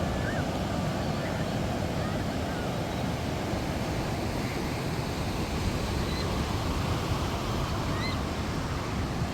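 Steady wash of ocean surf mixed with wind on the microphone, with a few faint high chirps.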